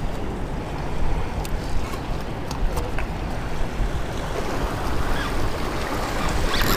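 Wind buffeting the microphone over the steady wash of surf on jetty rocks, with a few faint ticks.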